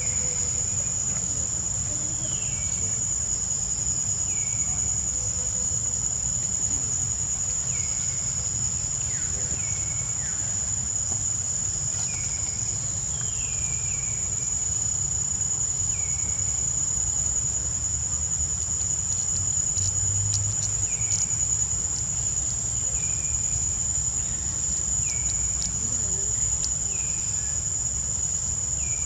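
Steady high-pitched insect drone, with a short falling call repeating every second or two over a low rumble.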